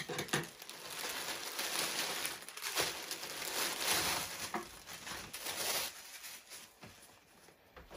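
Packaging crinkling and fabric rustling as new workout clothes are unwrapped and handled, fading toward the end.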